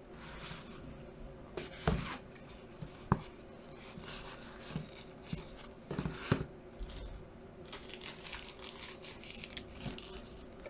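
Cardboard product box being handled and opened: irregular rustling, scraping and crinkling of card and paper, with a few sharp taps and knocks, about two, three and six seconds in.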